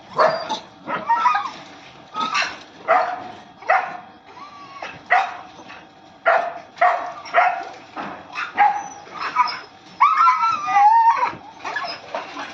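A pack of street dogs barking and yelping in short sharp bursts, about one a second, as they attack a monkey on the ground. Near the end comes a longer wavering cry.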